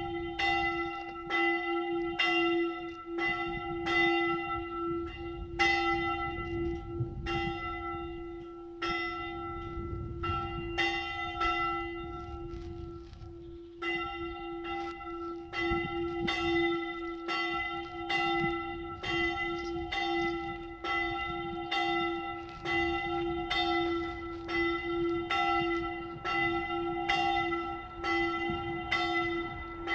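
Swinging bronze church bells, cast in 1918 by Ulrich & Weule and tuned e'' and a'', ringing for the evening Angelus and the death knell. The strokes come in a steady, overlapping run, with a short lull about twelve seconds in.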